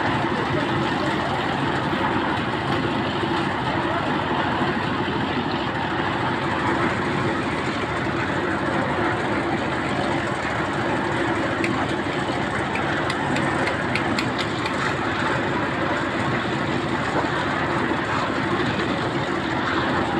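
A motor engine running steadily at an even speed, with a few faint light taps around the middle.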